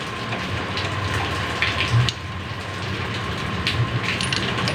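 Several light clicks and taps from hands working at a Vespa scooter's gear selector box, over a steady background hiss and low hum.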